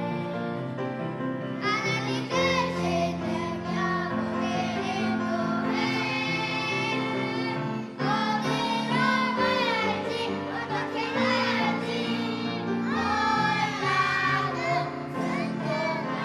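A children's choir singing a worship song together, with instrumental accompaniment holding low notes beneath the voices.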